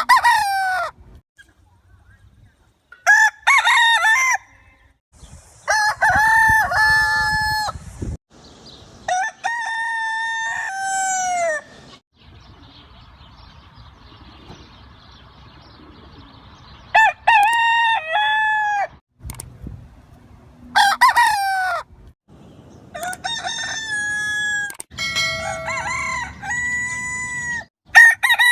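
Roosters crowing, one cock-a-doodle-doo after another: about eight crows, each one to two seconds long, with a long pause in the middle. Near the end two crows of different pitch overlap, as from more than one rooster.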